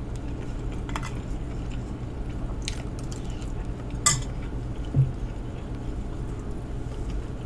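Eating utensil clinking against a glass bowl a few times, with a sharp clink about four seconds in and a dull knock about a second later, over a steady low hum.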